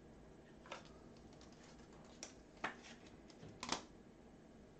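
A few faint, separate clicks and taps of trading cards being handled and set down on a stack of cards on a table, with a close pair of taps a little after three and a half seconds in.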